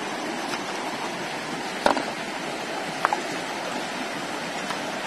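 Shallow river rushing steadily over stones, with a few short sharp knocks, the loudest about two seconds in.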